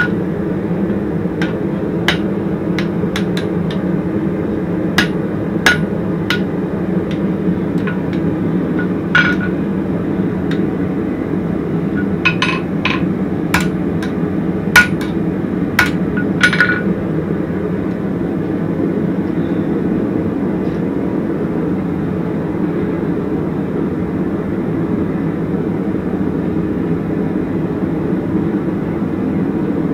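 Hand hammer striking hot horseshoe steel on an anvil that has a chain wrapped around its waist, in irregular, fairly light blows with a short clink to each, which stop about 17 seconds in. A steady low rumble runs underneath throughout.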